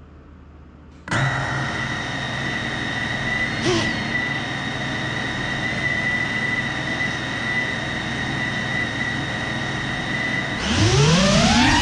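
Small quadcopter drone's electric motors starting abruptly about a second in and spinning steadily at idle with a high whine, then speeding up with a rising whine near the end as the drone lifts off.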